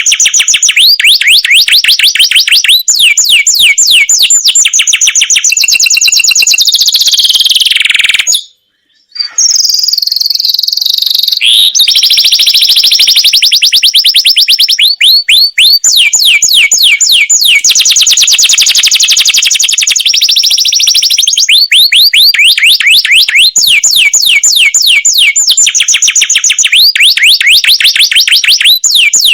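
Domestic canary singing long rolling trills, fast runs of repeated chirps that change from phrase to phrase, breaking off briefly about eight seconds in.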